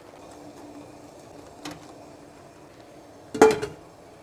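Stainless steel lid set down onto a stacked steamer pot: a metallic clank with a short ring about three and a half seconds in, after a lighter clink near the two-second mark, over a faint steady hiss.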